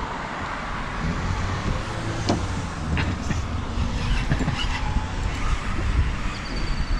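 Steady low rumble of road traffic, with a few sharp clicks and a thin, high, steady tone that starts near the end.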